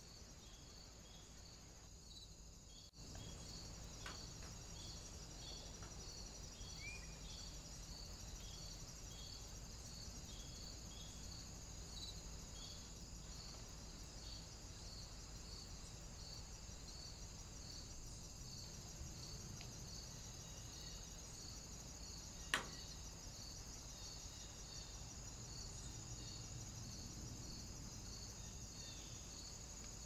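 Crickets chirping in a steady, evenly repeating rhythm, with a continuous high trill above the chirps. A single sharp click about three quarters of the way through.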